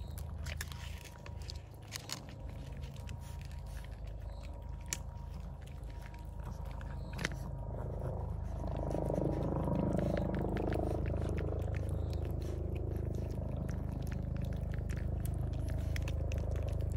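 Several cats crunching dry kibble from a plate, a run of small crisp crunches and clicks over a steady low hum. About eight seconds in, a softer, fuller sound rises for a few seconds as a ball of wet food is set down on the plate.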